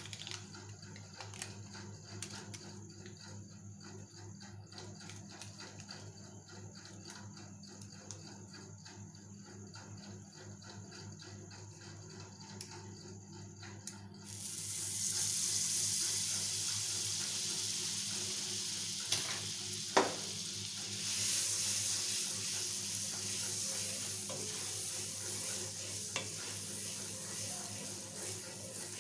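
A steady low hum with faint ticks, then about halfway through a loud sizzle starts suddenly as food goes onto the hot pan and keeps frying. A single sharp knock comes a few seconds after the sizzle starts.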